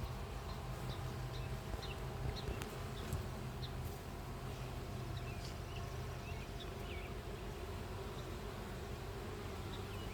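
Steady droning hum of honeybees around an opened hive, with scattered faint ticks and chirps.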